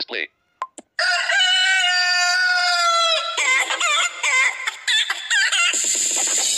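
A novelty chicken sound effect played from a phone ringtone app. After a short click, one long held, crow-like call drops at its end, then a quick run of wavering clucks follows, and a noisier layer joins near the end.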